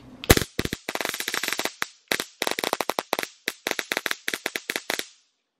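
Vipertek VTS-880 mini stun gun arcing across its electrodes: a rapid, sharp crackle of sparks, fired in a few bursts with short breaks, stopping near the end.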